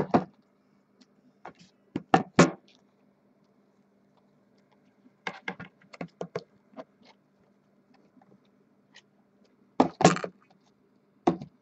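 Scattered sharp clicks and taps in short irregular runs, typing on a computer keyboard, over a faint steady electrical hum.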